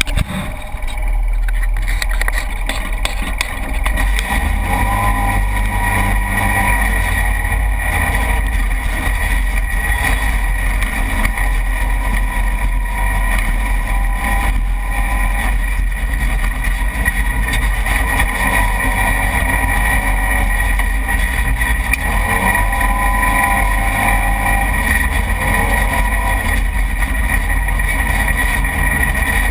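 Side-by-side UTV engine running steadily under way on a dirt trail, a constant drone with a steady whine. The pitch rises and falls a little as the throttle and speed change.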